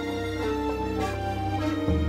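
Slow background music: sustained notes that change every half second or so, with a deeper note coming in near the end.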